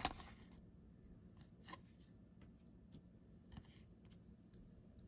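Near silence with faint rustles of trading cards being handled and slid through the hands; the loudest rustle comes right at the start, with a few softer ones later.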